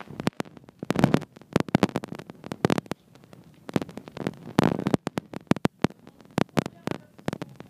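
Savate (boxe française) fighters exchanging blows: gloves and shoes landing in an irregular flurry of sharp slaps and thuds, with louder clusters about a second in and again near the five-second mark.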